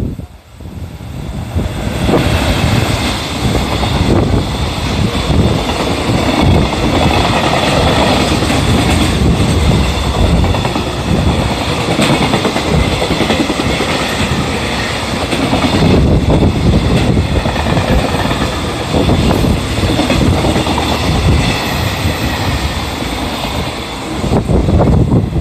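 Freight train hauled by an EF210 electric locomotive rolling past close by: a loud, steady rumble with wheels clattering over the rails. It builds within the first couple of seconds and then holds steady.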